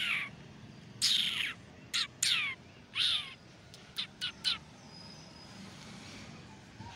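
A series of short, high-pitched animal calls, each falling in pitch, five of them in the first three seconds or so, followed by a few quick clicks about four seconds in.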